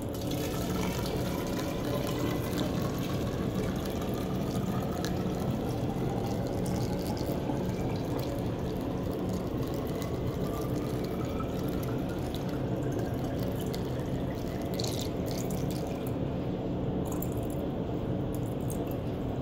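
Water poured from a 2-liter plastic soda bottle through a funnel into a tall plastic graduated cylinder, filling it toward the 1,000 mL mark. A steady splashing trickle whose pitch rises slowly as the column of water in the cylinder climbs.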